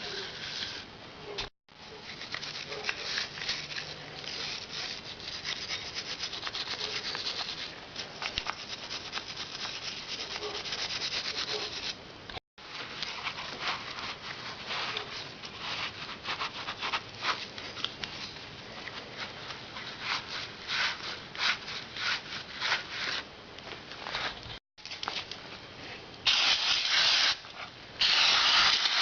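Gritty rubbing and scraping, made up of many short rasping strokes, with two louder, harsher bursts near the end.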